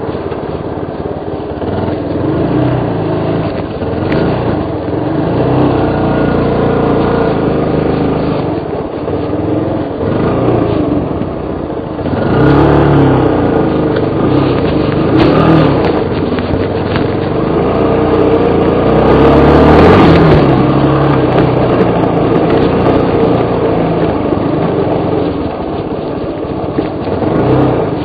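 Suzuki DR350 enduro bike's single-cylinder four-stroke engine running while riding over rough off-road ground, the revs rising and falling with the throttle. There are louder bursts of throttle a little under halfway through and again about two-thirds through.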